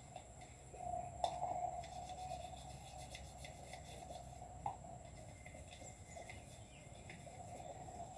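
Faint rubbing and scrubbing, with scattered light clicks, typical of a brush working over a motorcycle engine casing during cleaning.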